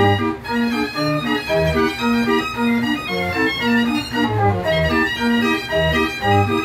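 Mechanical pipe band organ playing a tune: bass notes on a steady beat, chords answering between them, and a melody of pipe notes above.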